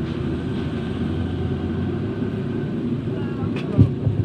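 A car engine running steadily as the car moves slowly past, with faint voices and a single thump near the end.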